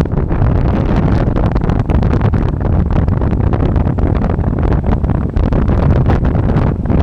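Heavy wind buffeting on the microphone of a rider moving at speed on an electric bike: a loud, low, continuous rumble with irregular gusty flutter.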